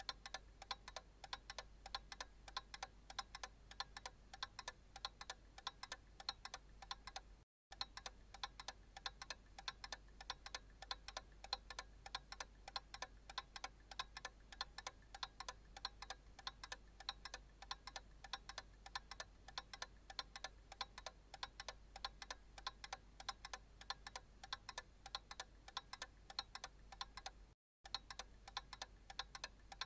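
Analog clock ticking steadily and faintly, in an even run of sharp ticks. The sound cuts out completely for a split second twice, once about a quarter of the way in and once near the end.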